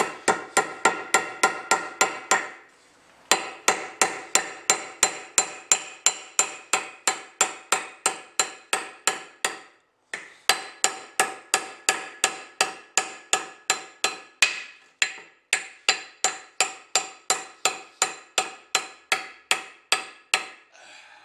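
Ball-peen hammer tapping a wedge down into the top of a new axe haft to lock the head on, fast and steady at about four ringing strikes a second. There are two short pauses, about two and a half seconds in and about ten seconds in.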